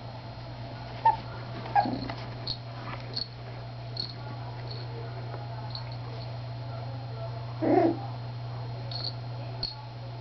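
Three-week-old miniature schnauzer puppies whimpering: two short squeaks in the first two seconds, then a longer whimper about eight seconds in, the loudest sound, over a steady low hum.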